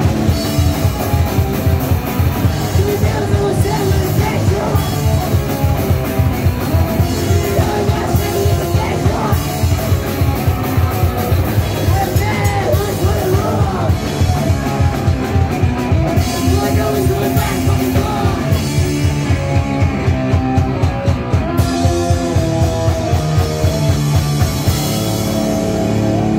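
Live punk rock band playing at full volume: fast, driving drum kit, distorted electric guitars and bass, with shouted singing over the top. Near the end the drumming stops and the guitars ring on.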